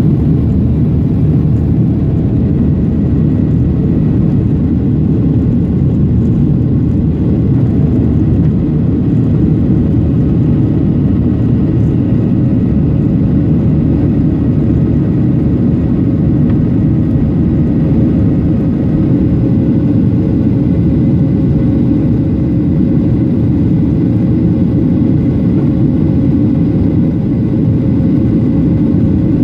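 Jet engines and airflow of a Boeing 737 climbing after takeoff, heard inside the cabin over the wing: a deep, even rumble with a faint steady whine above it.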